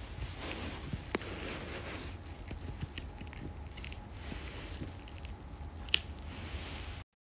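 A schnauzer chewing and gnawing a dried turkey tendon treat: wet squishing and scattered crunchy clicks as its teeth work the chew, with one sharper crack about six seconds in. The sound cuts off abruptly near the end.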